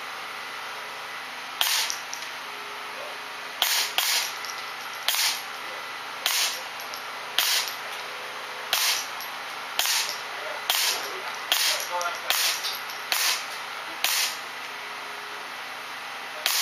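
Suppressed Ruger 10/22 semi-automatic .22 rimfire rifle firing with a ceramic-baffled suppressor: about a dozen short, sharp shots, mostly about a second apart with a couple of quicker pairs.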